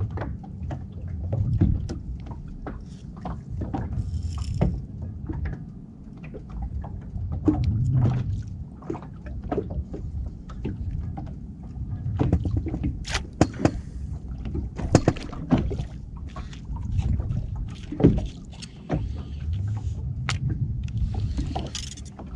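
Small boat afloat, with a low, swelling wash of water against the hull and many sharp knocks and clicks from gear and fittings.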